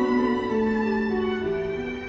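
Background music: a slow melody of long held notes, each lasting around half a second to a second before moving to the next pitch.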